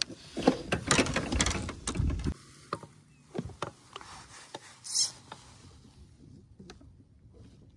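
Knocks and rumbling handling noise for the first two seconds or so, then scattered clicks and ticks of a fishing reel and tackle being worked, with one brief high hiss about five seconds in.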